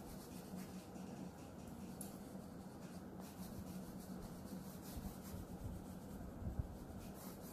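Faint scratching of a white oil pastel stroked lightly over paper, blending white into blue colour, with a faint steady hum behind it.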